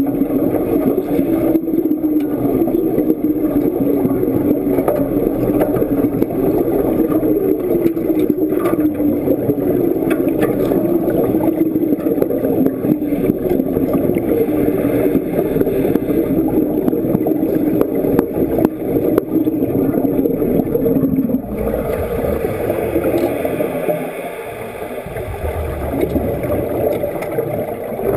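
Underwater wet welding arc: the stick electrode crackling and bubbling steadily, then cutting out about three-quarters of the way through, leaving softer gurgling of water and bubbles.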